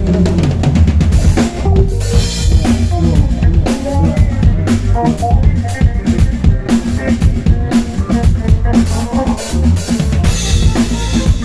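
Live drum kit and bass guitar jamming: fast, busy drumming on kick, snare and cymbals over a heavy bass line.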